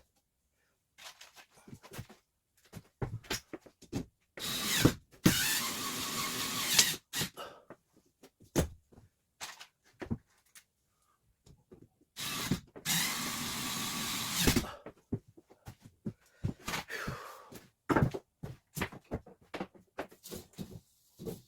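A power drill running in two steady bursts of about two seconds each, driving screws to fix plywood ceiling panels. Short knocks and clicks of work on the panels come between the bursts.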